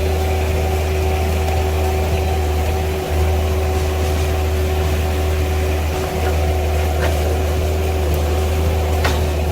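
A machine's engine running steadily, a constant low hum with a steady higher whine above it and a few faint clicks.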